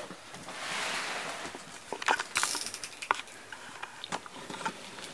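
A utility knife cutting the packing tape on a cardboard box: scraping and rustling of tape and cardboard, a short tearing burst about two and a half seconds in, and scattered clicks.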